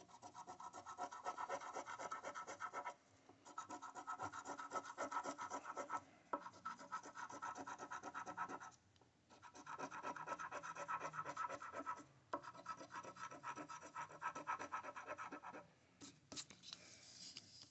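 A coin scraping the coating off a paper scratch-off lottery ticket: rapid back-and-forth scratching strokes in about five runs of roughly three seconds each, with short pauses between.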